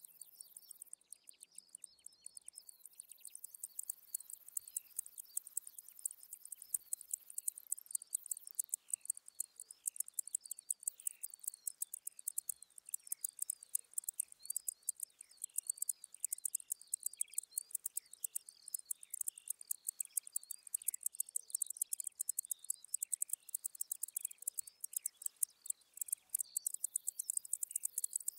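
Mediterranean wart-biter bush-cricket (Decticus albifrons) stridulating: a fast, dense run of sharp, very high clicks that grows stronger some seconds in. Many short gliding chirps sound lower down throughout.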